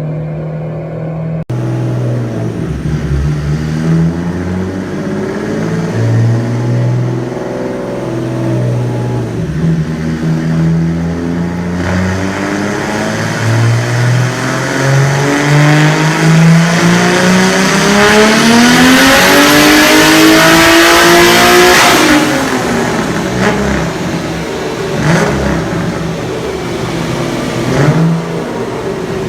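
Tuned turbocharged car engine making a full-throttle dyno pull: after some uneven revving, the pitch climbs steadily for about ten seconds and cuts off abruptly about twenty-two seconds in. It then drops back to a lower, uneven running with a couple of short sharp revs near the end.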